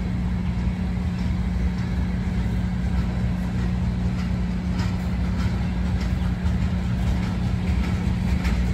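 Tank cars of a long mixed freight train rolling past: a steady rumble of steel wheels on rail with a steady low hum and a few sharp clicks.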